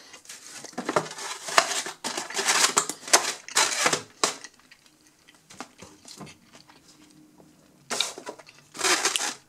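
Polystyrene foam takeaway clamshell boxes handled by hand: a run of noisy foam-on-foam rubbing and pressing over the first four seconds as a lid is shut and pressed down, then two shorter bursts near the end as the smaller box is picked up.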